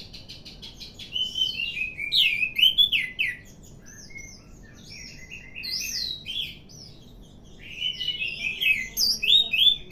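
Orange-headed thrush singing a varied song of rapid whistled phrases and quick sweeping notes, in two loud runs about a second in and near the end, with softer phrases between.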